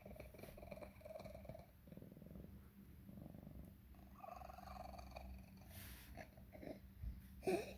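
Domestic cat purring with a wheezy, whistling edge to its breathing, broken near the end by a short sharp noise, the loudest moment. The owner puts the wheezing, coughing and swallowing down to a throat infection, cat herpes or asthma, and an X-ray showed tumours in the throat.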